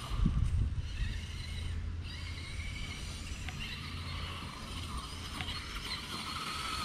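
Traxxas E-Maxx 3906 electric RC monster truck driving, with the whine of its 775 motor and its all-steel transmission: idler gears and steel spur making a racket. The gear whine wavers up and down in pitch with the throttle over a steady low hum.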